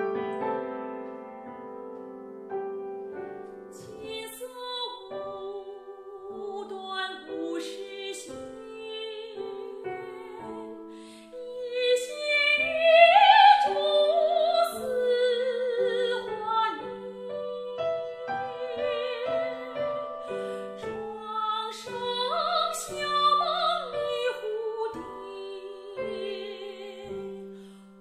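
A soprano singing a Chinese classical art song with wide vibrato over piano accompaniment; the piano plays alone at first and the voice enters about four seconds in. The voice swells loudest about halfway through.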